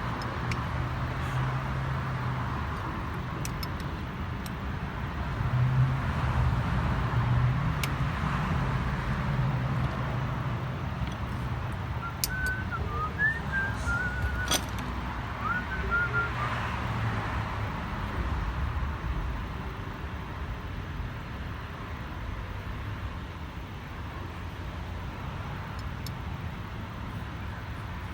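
Steady low vehicle hum, like traffic or an idling engine, swelling briefly about six seconds in, with a few short high chirps near the middle and some faint clicks.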